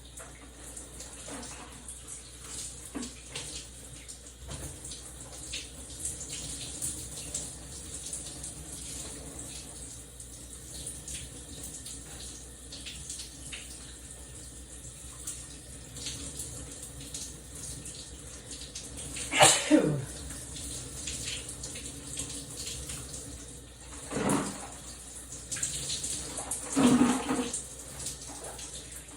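Shower water running steadily, with a loud sneeze about two-thirds of the way in and two more shorter sneezes near the end.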